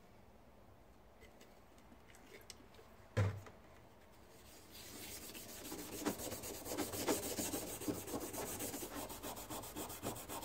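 A coarse Scotch-Brite pad wet with Varsol is scrubbed back and forth over a rusty steel block. It makes a continuous rubbing with rapid strokes that starts a little before halfway in, after a single short thump.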